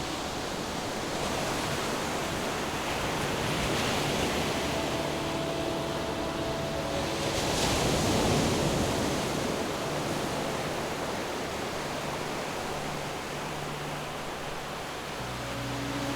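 Ocean surf washing onto a beach, a steady hiss of breaking waves that swells and eases, loudest about eight seconds in.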